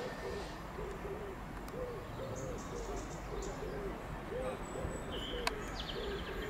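A pigeon cooing, a steady run of soft low coos about two a second, over a faint background rumble. A single sharp click comes about five and a half seconds in, and faint high chirps of small birds come and go.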